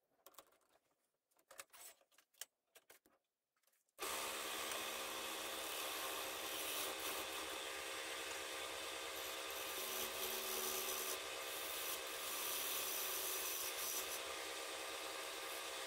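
A few faint clicks and knocks as a metal chuck is handled at the lathe spindle, then about four seconds in a wood lathe starts running steadily, with a turning tool scraping the spinning wood: a constant hiss over a low motor hum.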